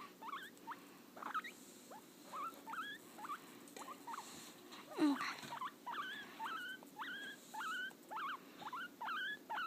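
Guinea pig wheeking: a run of short, high, squeaky whistles, each sliding up in pitch. They come more regularly and louder in the second half, about two a second by the end. This is the begging call of a guinea pig expecting food.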